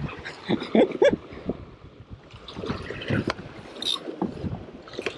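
Small boat at sea: irregular knocks, thumps and water slaps against the hull, with wind on the microphone.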